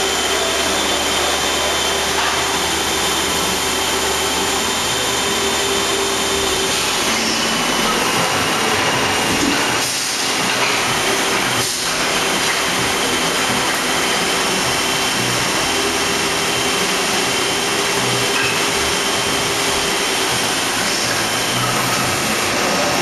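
Hardinge Elite II-8/51 CNC lathe running under power while cutting parts: a loud, steady machine noise with several held whining tones that shift in pitch a few times as the machining changes.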